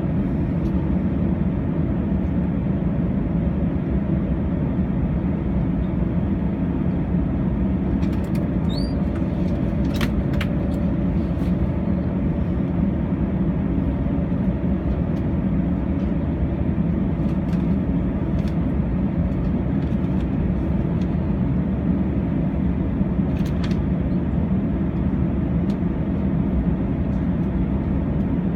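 Airbus A321's jet engines idling, heard inside the cabin as a steady low rumble with a faint held hum. A few faint clicks and a brief rising chirp come about nine seconds in.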